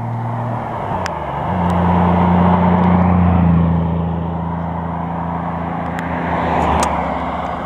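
A modified car's engine running at steady revs as the car drives past and away, over the hiss of tyres on wet tarmac. The engine note dips about a second in, then holds steady.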